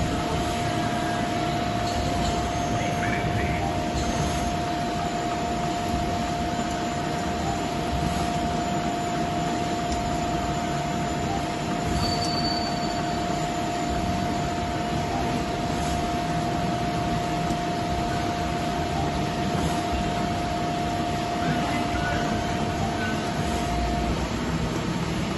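Lealde TCN-10 CNC lathe running with its chuck and workpiece spinning: an even machine hum with a steady whine that stops about a second before the end.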